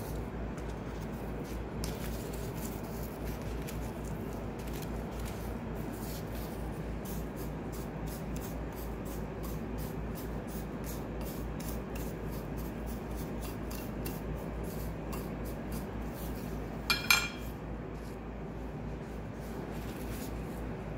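Wooden chopsticks stirring and scraping granulated sugar in a ceramic bowl: a steady scratchy rubbing made of many small scrapes. A short, louder clatter comes near the end.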